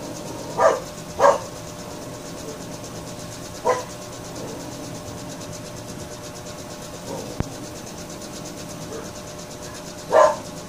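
A dog barking in short single barks: two about a second in, one near four seconds and one near the end. A single sharp click comes in between.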